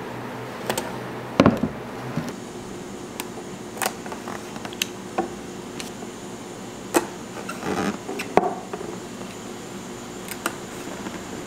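Hands handling empty plastic bottles on a wooden table while labelling them: scattered light clicks and taps, a heavier knock about a second and a half in, and a short rustle of sticker paper a little past the middle.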